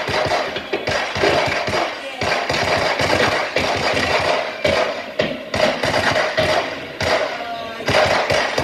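A loud recording of firecrackers played back: a dense, irregular string of cracks and bangs, several a second.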